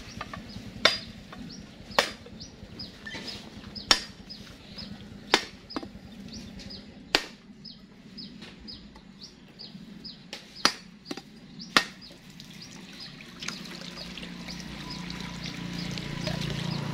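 Heavy knife blade striking a husked coconut's hard shell around its middle, about ten sharp separate knocks at irregular intervals, cracking the nut to split it in half. Birds chirp in short high calls throughout.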